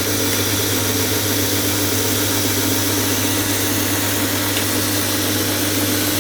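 Homemade belt grinder running steadily, driven by a 2 hp treadmill motor through a cheap speed controller: an even motor hum with the belt running over its wheels, tracking true.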